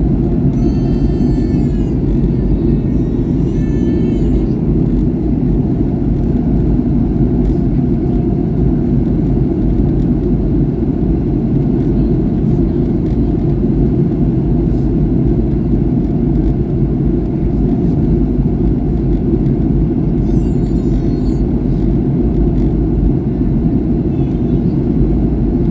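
Steady low roar of a Boeing 737-800's cabin in flight: CFM56-7B engine and airflow noise heard from a seat near the wing, unchanging throughout. A thin, high-pitched voice cuts through briefly in the first few seconds and again about 20 seconds in.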